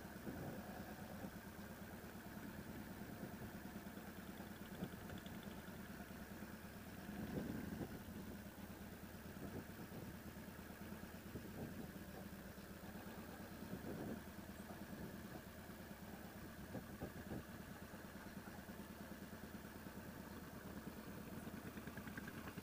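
Motorcycle engine idling steadily at a low level.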